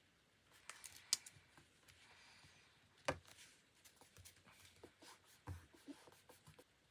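Diary-decorating stationery handled on a desk: scattered light clicks, taps and paper rustling, with sharp clicks about a second in and about three seconds in.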